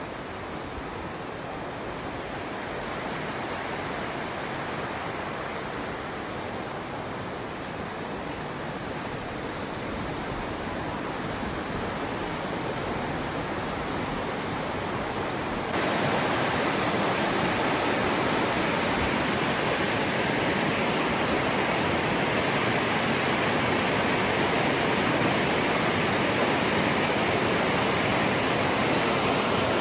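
Steady rush of falling water from the Little Mashel River, growing gradually louder and jumping louder about halfway through.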